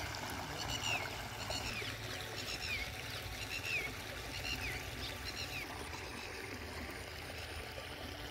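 Shallow water trickling and splashing over stones in a small stream. For the first five seconds or so, a bird gives a short, downward-sliding chirp about once a second.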